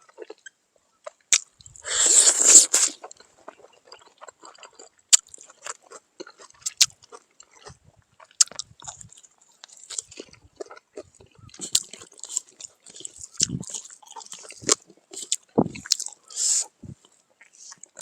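A person eating at close range, chewing and biting food in irregular clicks and crunches. A louder rushing noise sounds about two seconds in.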